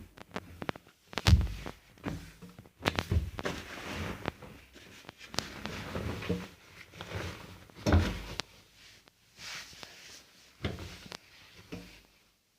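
Irregular thuds and clicks from an AEG washing machine, with two heavier low thumps: one about a second in and one past the middle.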